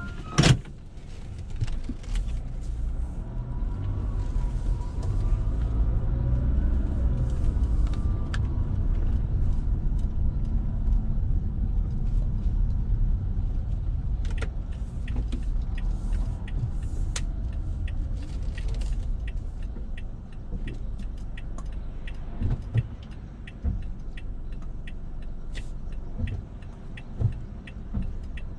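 Car engine and road rumble heard inside the cabin, swelling as the car pulls away with some rising engine tone, after one sharp click at the start. From about halfway through, a light regular ticking runs over the rumble.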